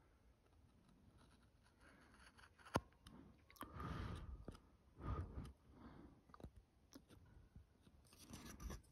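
Chip-carving knife cutting into a wooden coaster: a few short, quiet crunching cuts, with a sharp click about three seconds in.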